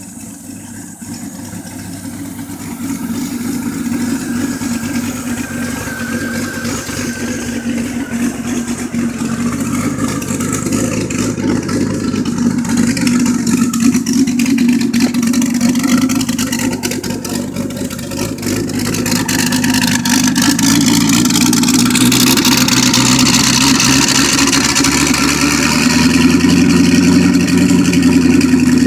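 Twin-turbocharged, cammed LS V8 of a 2001 C5 Corvette idling steadily, growing louder toward the end as the rear exhaust comes closer.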